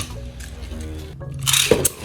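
Beyblade spinning tops whirring and clashing in a plastic stadium, with a cluster of sharp clacks about one and a half seconds in, over background music.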